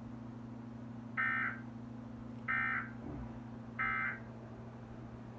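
Emergency Alert System end-of-message data bursts: three short, raspy, buzzing bursts about a second and a half apart, sounding the close of the alert. A steady low electrical hum runs underneath.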